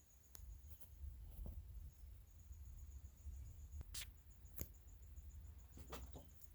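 Near silence with a few faint, scattered clicks and taps from handling a small Beretta 21A .22 pistol, the clearest about four seconds in.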